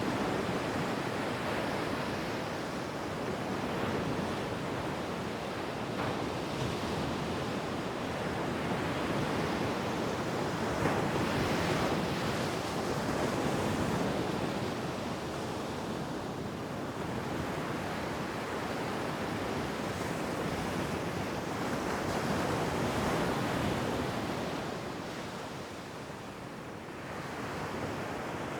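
Ocean surf on a beach: waves breaking and washing in with a steady rushing noise that swells and ebbs every few seconds.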